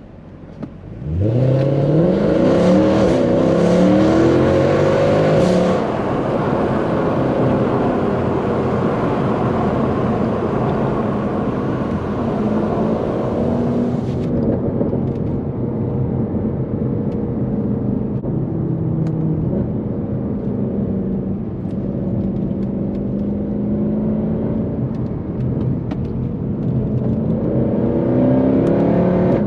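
Mercedes C63 AMG's naturally aspirated 6.2-litre M156 V8 accelerating hard about a second in, revs climbing quickly, then running steadily under load. The revs rise again near the end.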